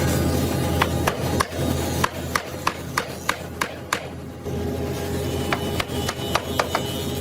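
Hammer blows on wood in quick, regular strikes, about three a second, in two runs with a short pause between them, over background music.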